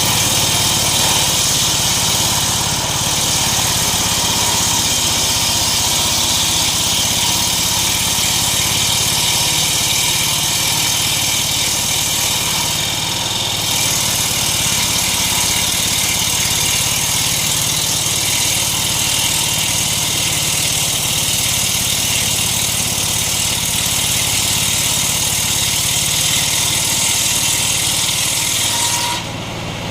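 Homemade engine-driven circular sawmill running steadily, a constant engine note under a loud high hiss of the blade, which drops away just before the end.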